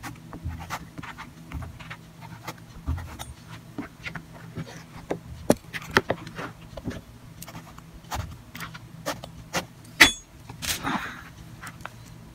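Kitchen knife slicing eggplant on a cutting board: irregular knocks of the blade on the board and handling of the pieces, the loudest a sharp knock about ten seconds in.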